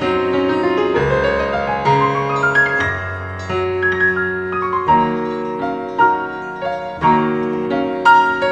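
Piano music, with quick rising runs of notes in the first few seconds and then sustained chords.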